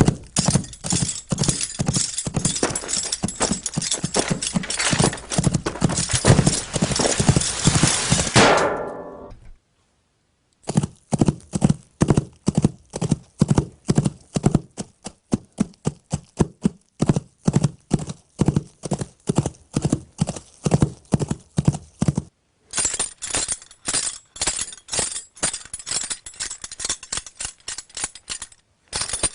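Clip-clop hoofbeats: runs of regular, sharp hoof strikes, broken twice by brief silences.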